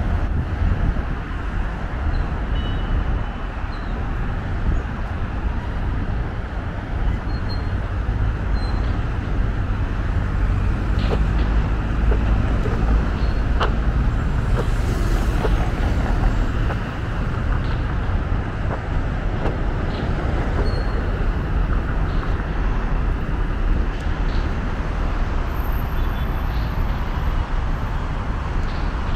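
Steady noise of heavy traffic on a multi-lane highway, tyres and engines blending into a constant wash with a strong low rumble.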